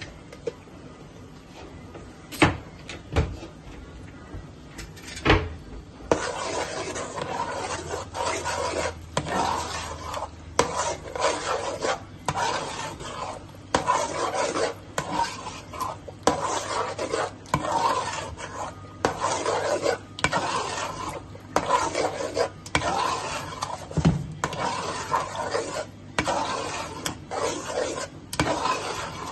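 A metal spoon stirring and scraping through thick masala in a large metal pot. The first few seconds hold a few sharp knocks; from about six seconds in comes a quick, continuous run of scraping strokes.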